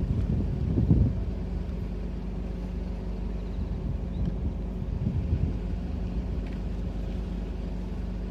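Car engine running steadily with a low hum, under a low rumbling background and a couple of louder low swells near the start.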